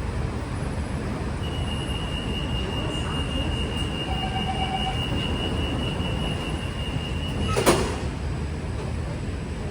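Kawasaki–CRRC Qingdao Sifang T251 metro train departing the station: a steady low rumble with wind noise on the microphone. A high steady tone holds for about six seconds and ends with a sharp knock about eight seconds in.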